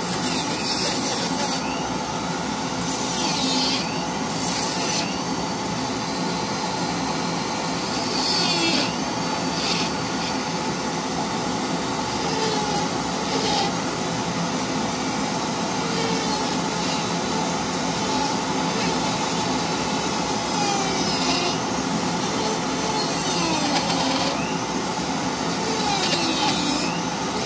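Handheld rotary tool running at steady speed with a carving burr grinding into a block of hard cedar. A steady motor whine sits under the cutting noise, which swells each time the burr bites into the wood.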